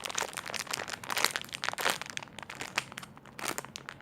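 Crinkling and crackling of plastic packaging as squishy toys are handled, in an irregular run of small crackles.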